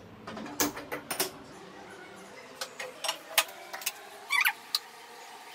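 Kitchen clatter: scattered sharp knocks and clinks of a metal frying pan and utensils being handled on a gas stove and counter, with a short ringing clatter about four and a half seconds in.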